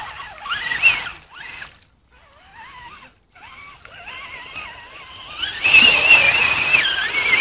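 Radio-controlled off-road truck's electric motor and gears whining as it is driven through mud, the pitch sliding up and down with the throttle. It comes in short spurts at first, then runs loudest and steadiest for the last couple of seconds as the truck ploughs through deep mud.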